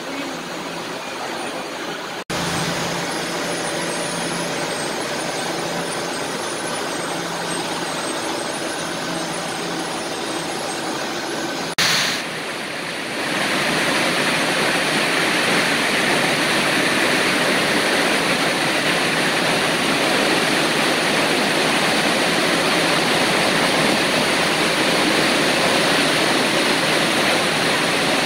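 Factory machinery running steadily, broken by two sudden edits. About 13 seconds in it gives way to the louder, dense, even din of a hall full of Toyota air-jet weaving looms running.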